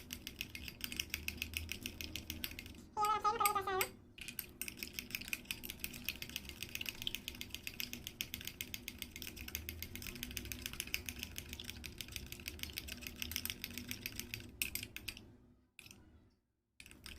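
A spoon stirring a thick, sticky slime mixture in a glass bowl: rapid, continuous clicking and tapping against the bowl. A short wavering tone breaks in about three seconds in, and the stirring stops briefly near the end.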